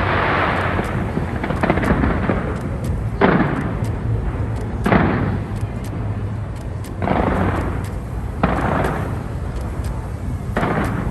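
Aerial fireworks bursting in a rapid succession of heavy booms, about seven of them one to two seconds apart, with sharp crackling between the bursts.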